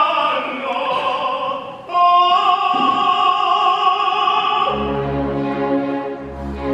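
Operatic tenor singing with orchestra, holding a long high note through the middle. A low sustained accompaniment comes in about two-thirds of the way through.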